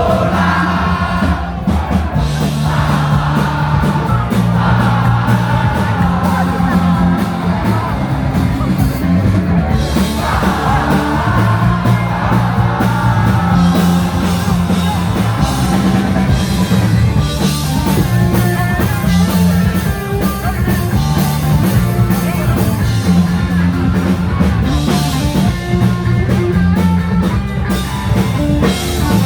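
Punk rock band playing live, with drums, bass and electric guitars, and a sung vocal line over the band for roughly the first ten seconds.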